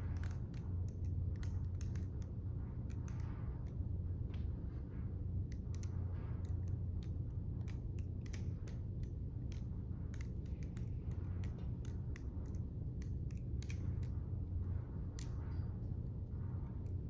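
Defcon Accel balisong (butterfly knife) being fanned with its live blade: the metal handles and blade click and clack in quick, irregular runs, with soft swishes between them, over a steady low hum.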